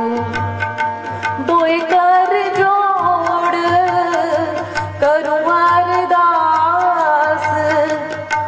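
Gurbani kirtan: a woman singing a Sikh hymn in a sustained, gliding melody over held harmonium tones and a steady tabla beat.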